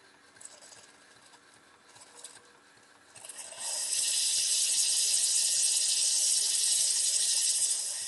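Steam blowing out under a 3-inch scale Marshall traction engine: two brief hisses, then about three seconds in a loud, steady hiss that runs for some five seconds and cuts off suddenly.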